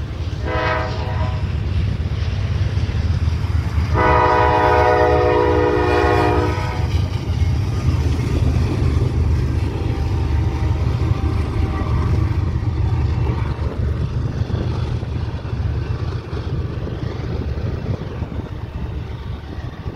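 Norfolk Southern diesel locomotives sounding their air horn for the grade crossing: a short blast about half a second in, then a longer, louder blast from about 4 to 7 seconds. Under the horn, the steady rumble of the locomotives and the double-stack intermodal train passing over the crossing.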